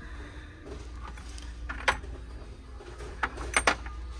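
Glass perfume bottles clinking as a hand touches and moves them on a store shelf: one sharp clink about two seconds in, then three more close together near the end, the last ones with a short high ring, over a steady low hum.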